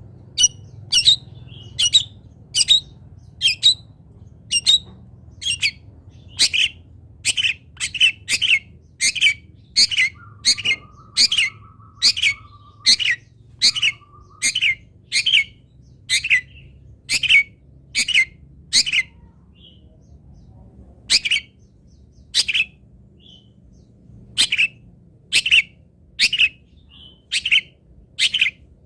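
Long-tailed shrike (cendet) calling: a long run of short, sharp, harsh notes, roughly two a second, broken by a couple of brief pauses. A faint buzzy note runs under the calls around the middle.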